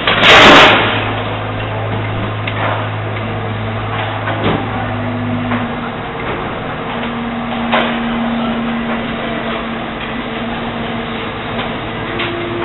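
Garbage boat's crane and motor working while a waste bin is lifted: a steady low hum that cuts out about five seconds in, followed by a higher steady whine that comes and goes. Metal clanks and knocks throughout, with a loud clatter about half a second in.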